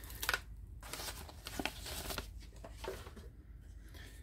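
Crumpled brown kraft packing paper rustling and crinkling as it is pulled back out of a cardboard shipping box, with a few short crackles that die away near the end.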